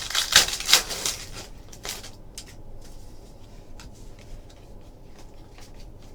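Trading cards being handled: a burst of rustling and sliding in the first second, then a few light rustles and ticks.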